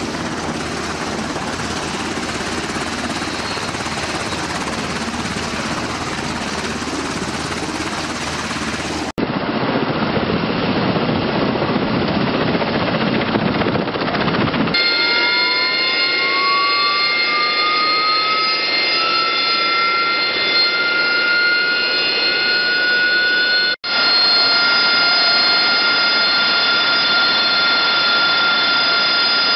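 Steady rushing jet noise for the first part, then the whine of an AV-8B Harrier's Pegasus turbofan rising in pitch as it spools up, settling into a steady high-pitched whine as the jet holds power for a deck launch.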